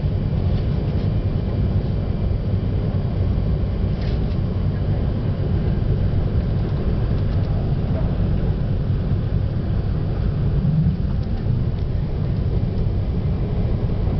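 Steady low rumble of a Tsubasa shinkansen running at speed, heard from inside the passenger car.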